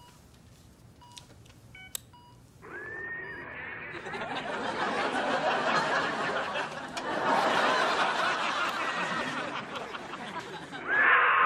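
A few faint electronic beeps, then a studio audience laughing: the laughter starts about two and a half seconds in and swells, continuing in waves. A louder sound cuts in abruptly just before the end.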